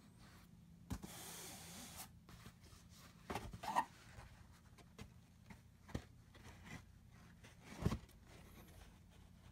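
Cardboard hat box and paper being handled: a short stretch of paper rustling about a second in, then scattered soft knocks and taps as the box and its insert are moved, the loudest around the middle and near the end.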